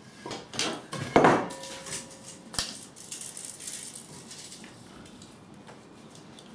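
Small metal hardware being handled, clinking and knocking: several sharp knocks in the first three seconds, the loudest about a second in, leaving a short metallic ring. Quieter clicks of handling follow.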